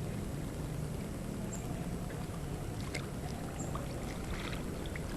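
Steady outdoor background noise with a low rumble and hiss, and a few faint clicks, one sharper about three seconds in.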